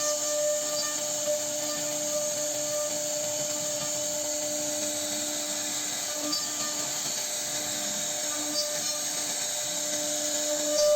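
CNC router spindle running while it carves a wooden door panel: a steady whine over the hiss of the bit cutting wood.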